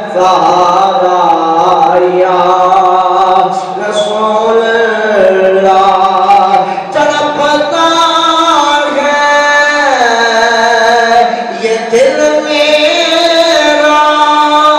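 A man's voice chanting in long melodic phrases, holding notes and sliding between them, with short breaks between phrases.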